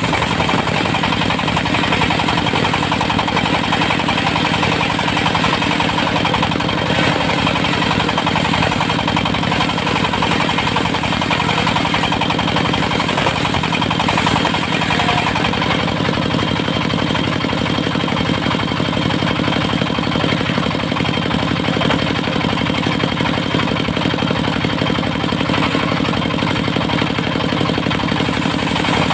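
Diesel engine of a portable circular sawmill running steadily at constant speed.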